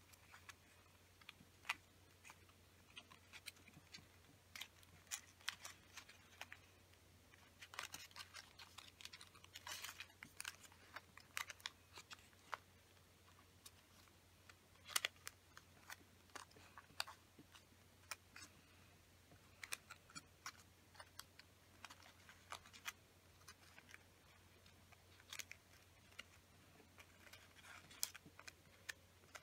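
Faint, irregular crinkling and clicking of small sheets of origami paper being folded and pressed together by hand, over a low steady hum.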